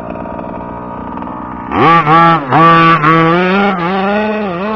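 Two-stroke gas engine of a 1/5-scale RC truck running at part throttle, then, a little under two seconds in, revved hard in a few quick blips and held at high revs with the pitch wavering.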